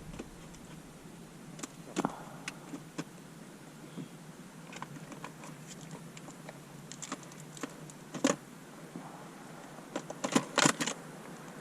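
Small items being rummaged through in a first aid kit: scattered clicks and rattles of plastic and packets, with the loudest cluster near the end.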